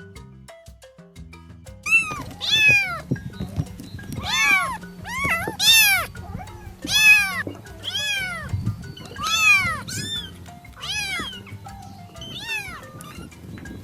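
A cat meowing over and over, about ten loud meows roughly a second apart, each rising and then falling in pitch, starting about two seconds in and getting weaker near the end. Faint background music runs underneath.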